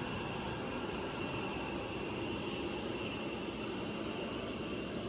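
Steady jet engine drone with faint high whining tones, as heard inside an airliner cabin in flight.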